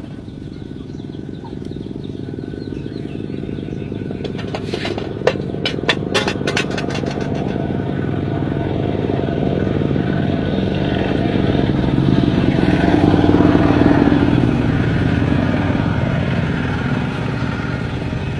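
A motor running steadily, slowly growing louder to a peak about two-thirds of the way through, then easing off. A quick run of sharp clicks comes about five to seven seconds in.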